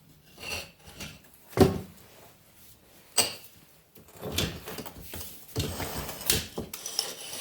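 Metal tools knocking and scraping against a Volkswagen Type 1 cylinder head while a valve spring is being removed. Two sharp knocks come about a second and a half apart, then a run of irregular clattering and scraping.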